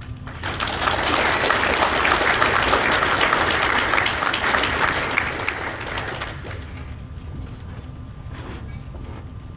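Audience applauding: the clapping swells within the first second, holds for a few seconds, then dies away about two-thirds of the way through.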